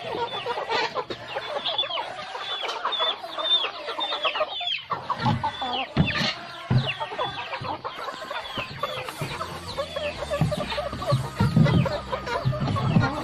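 A backyard flock of Bangkok, Pelung and kampung chickens clucking, with many short, high peeps that fall in pitch, repeating all through.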